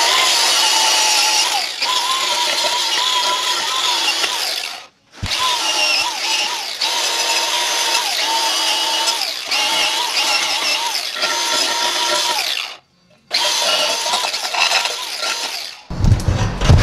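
Handheld power grinder scouring rust and brake dust off a drum-brake backing plate, cleaning the pads where the brake shoes ride: a steady, wavering motor whine over a scraping hiss. It is let off and run again twice, about five and thirteen seconds in, and stops near the end.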